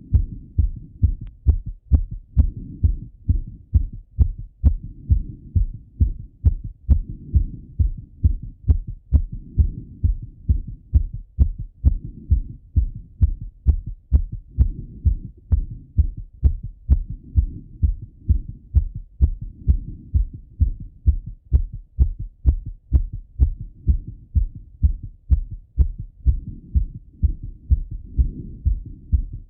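A man's fast heartbeat after running, heard through a Littmann stethoscope on the chest: steady, regular thumping beats. Under the beats a low rushing swells and fades every few seconds.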